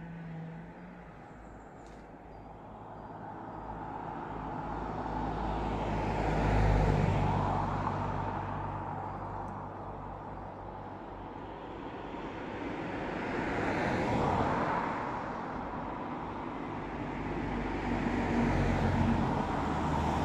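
Cars passing on a road one after another: a rushing tyre-and-engine noise swells and fades three times, loudest the first time, about a third of the way in.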